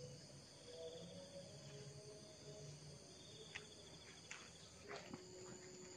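Faint outdoor insect chorus: steady high-pitched buzzing with a pulsing trill that comes twice, and a few short sharp chirps in the second half.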